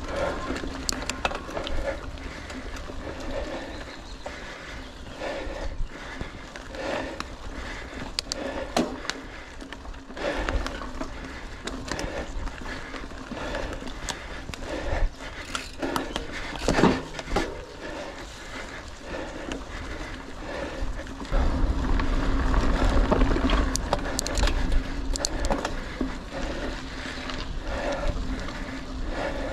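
Mountain bike being ridden over rough trail: a steady rolling noise with frequent clicks and knocks as the bike rattles, and a low rumble that gets louder about two-thirds of the way through.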